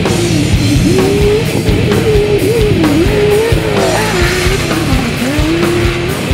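Rock music with guitar and a drum kit; a lead melody line bends up and down over a steady beat.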